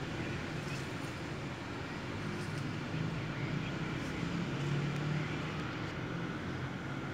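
Steady low drone of a distant engine, swelling slightly about five seconds in.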